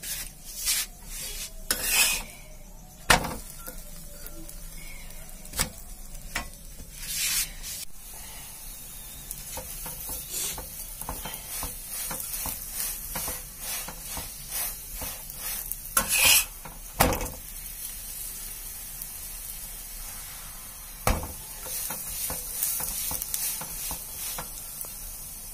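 A radish paratha frying in mustard oil on a tawa, the oil sizzling steadily, with a metal spatula scraping and knocking against the pan several times as it presses and turns the paratha.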